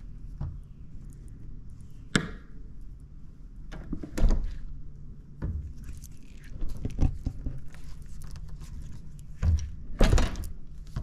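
Handle, latch and panels of a multi-panel bi-fold glass door being worked by hand: a string of clunks and knocks, the loudest about four seconds in and again near the end.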